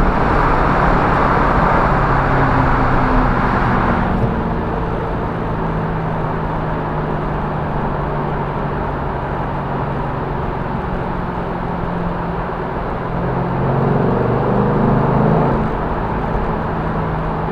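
A Ford Mustang GT's 4.6-litre V8 on its stock exhaust, held at raised revs and then dropping abruptly to a steady idle about four seconds in. It is blipped briefly near the end before settling back to idle.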